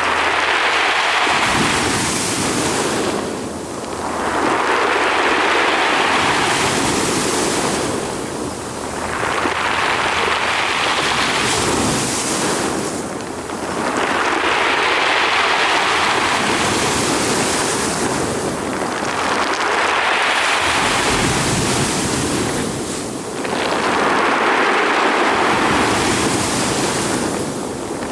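Sea surf breaking and washing on the shore in repeated surges, about one every four to five seconds.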